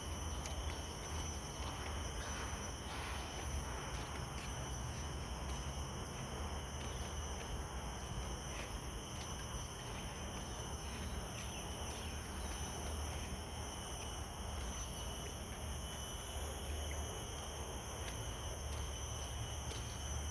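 Chorus of insects such as crickets, a steady high-pitched trilling in several layers, over a low rumble.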